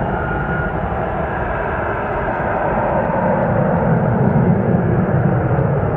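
Dassault Falcon 8X's three Pratt & Whitney Canada PW307D turbofans at takeoff power as the jet climbs out: a steady, noisy jet roar. A thin high whine fades out about a second in, and the roar swells slightly past the halfway point.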